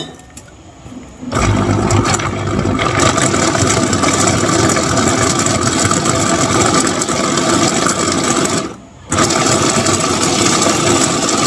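A motor starts abruptly about a second in and runs loud and steady. It cuts out briefly near the end, then starts again.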